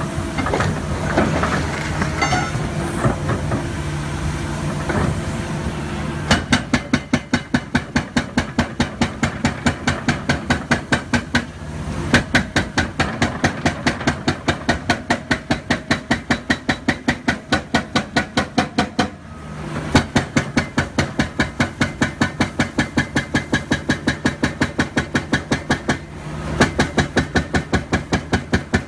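A heavy machine's engine running steadily. It is followed by rapid, evenly spaced mechanical impacts, about four a second, which stop and restart a few times.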